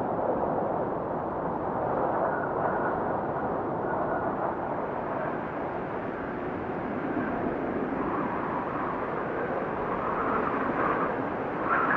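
Blizzard wind blowing in steady gusts, a rushing noise that swells and eases, with a faint whistle in it.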